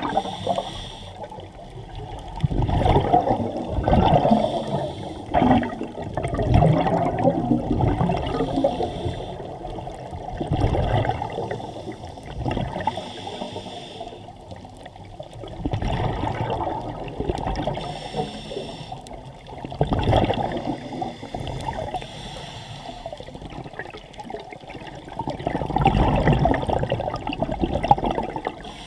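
Scuba exhaust bubbles from a diver's regulator, heard underwater: gurgling, rushing surges that swell and fade every few seconds with each breath out.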